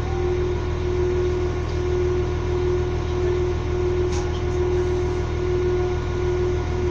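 Steady machine hum of a stationary train's onboard equipment, with a higher tone pulsing at a regular beat above it. A brief click about four seconds in.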